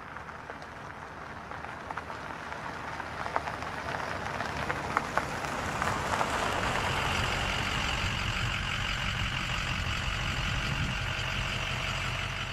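Ute engine running and tyres rolling on a dirt road while towing a boat trailer, with a few sharp ticks like gravel. The engine hum grows louder about six seconds in.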